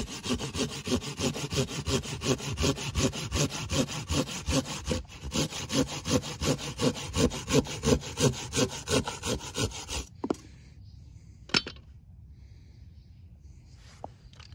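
Small hand pruning saw cutting through a thick root of a chòi mòi (Antidesma) stump in quick, rhythmic back-and-forth strokes that stop about ten seconds in; a single sharp click follows shortly after.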